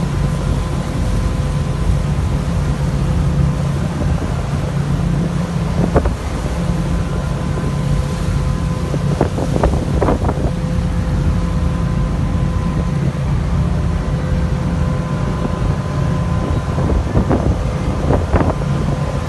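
An engine running steadily with a low hum and a strong rumble of wind on the microphone, broken by a few sharp knocks, some in quick succession.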